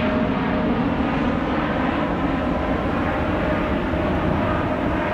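Boeing 777-300ER's two GE90-115B turbofan engines at climb power as the jet climbs out after takeoff: a steady, dense jet rumble with a faint steady whine over it.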